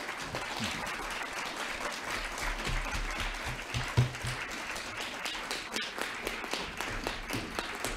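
Audience applauding steadily, with a few low thumps as papers are handled at the lectern, the loudest about four seconds in.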